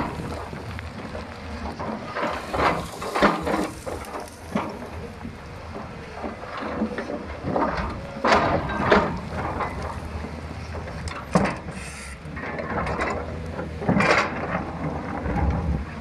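JCB excavator at work: its diesel engine runs steadily under irregular clanks and scrapes as the bucket and arm work the ground.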